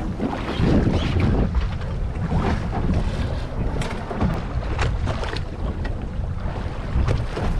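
Wind buffeting the microphone over open sea, with choppy waves splashing and slapping against the side of a small boat.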